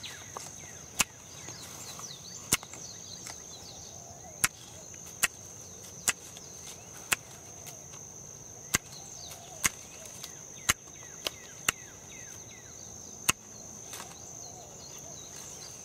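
Hand pruning shears snipping the leaves off mango scion wood: about a dozen sharp snips at uneven intervals, roughly one a second. A steady high insect trill runs underneath.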